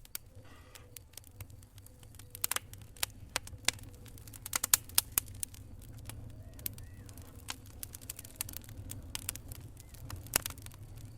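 Wood fire in a fireplace crackling: irregular sharp pops and snaps, some in quick clusters, over a steady low rumble of the flames.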